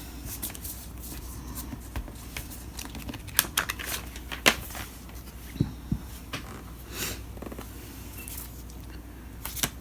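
Packaging being handled: plastic wrappings and paper inserts rustling and crinkling in irregular bursts, with scattered light clicks and taps.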